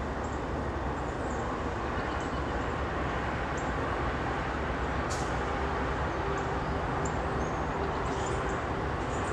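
Two GE diesel-electric locomotives running light with no train behind them, approaching from a distance: a steady low diesel rumble. A faint steady hum joins in a little past the middle.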